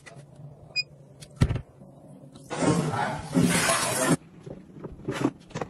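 A short electronic beep as the button on a portable fruit-and-vegetable purifier is pressed, then a click. After that, water pours and splashes from a colander into a glass bowl for about a second and a half, followed by a few light clicks.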